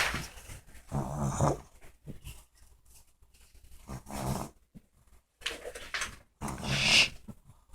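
Snoring: three rasping snores about two and a half to three seconds apart, with quieter breaths between them; the last snore, near the end, is the loudest.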